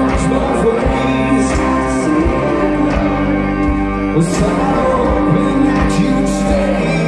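Rock band playing live with singing over drums, heard from the crowd through a phone's microphone.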